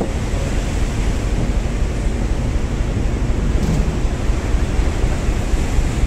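Strong wind and big waves rushing past a ship at sea: a steady loud roar of wind and surf, with wind buffeting the microphone.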